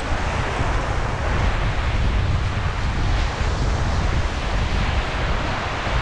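Wind buffeting the microphone in a steady, heavy rumble, over the even wash of surf.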